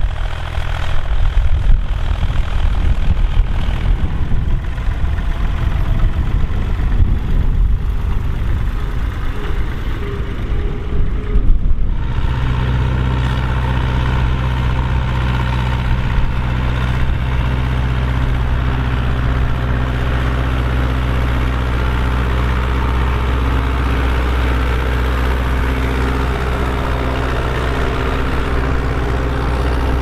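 Diesel tractor engines working under ploughing load. First a Bukh 452 diesel runs with an uneven, fluctuating level; then, from about 12 seconds in, a Zetor tractor's diesel engine runs steadily as it pulls a plough.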